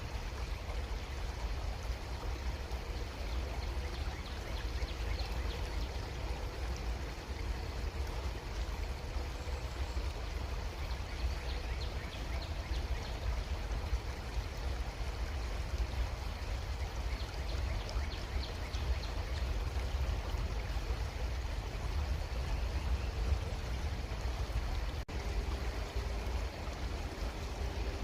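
Creek water flowing steadily, an even rushing wash with a strong low rumble underneath.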